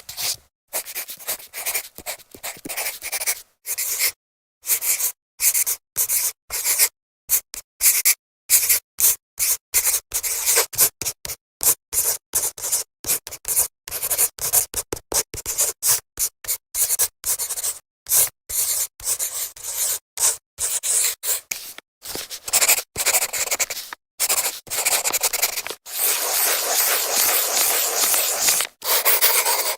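Marker drawing on a whiteboard: many short scratchy strokes, cut by sudden silent gaps, with a longer unbroken stroke near the end.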